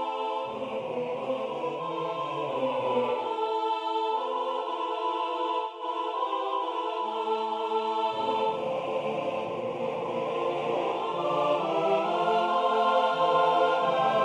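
Six-part choir singing unaccompanied. The low voices rest for a few seconds and enter again about eight seconds in.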